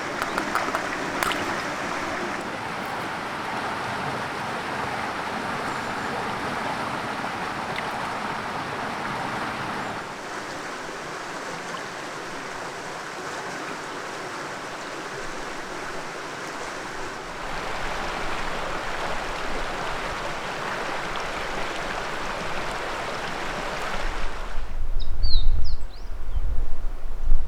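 River water flowing, a steady rushing sound that shifts in character twice. Near the end the rush drops away, a heavy low rumble of wind on the microphone takes over, and a bird chirps.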